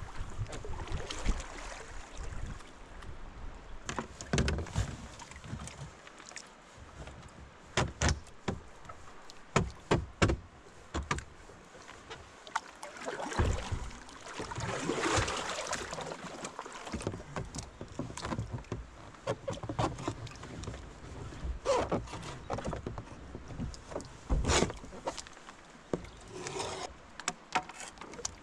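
Kayak being paddled on a river: paddle strokes in the water, with sharp knocks now and then at irregular intervals.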